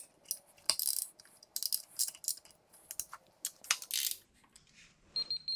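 Digital torque wrench ratcheting in short irregular runs of clicks as the fender bolts are tightened to 10 ft-lbs. A steady high beep starts near the end.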